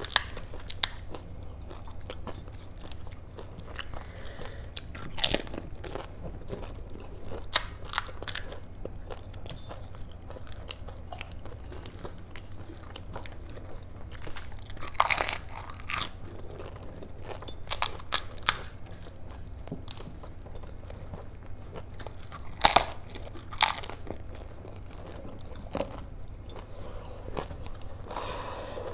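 Crisp pani puri (golgappa) shells crunching as they are cracked and eaten, with chewing in between: irregular sharp cracks every second or few seconds, a few of them loud, over a low steady hum.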